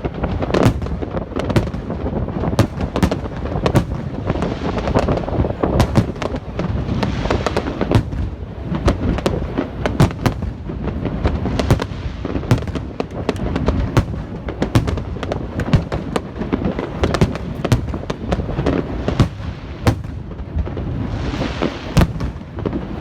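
Aerial fireworks display: a dense, continuous barrage of rapid bangs and pops, with a hissing crackle swelling up a few times.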